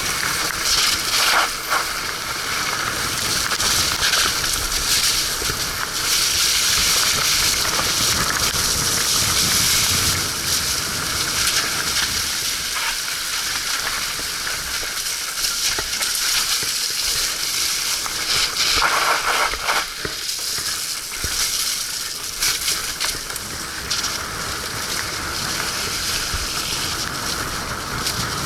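Mountain-bike tyres rolling through wet mud and gravel: a steady crunching, wet hiss with a few brief louder surges, about a second in and again near twenty seconds.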